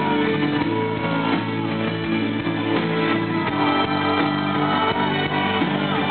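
Live pop-rock band playing an instrumental passage through a concert PA, with guitar over a steady drum beat, heard from within the crowd.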